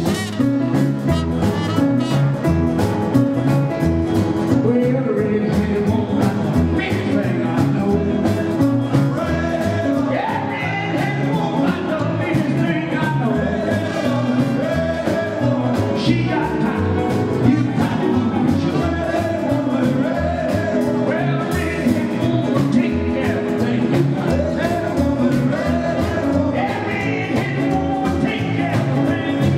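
Live rockabilly band playing: acoustic and electric guitars, electric keyboard, trumpet, double bass and drum kit, with a man singing.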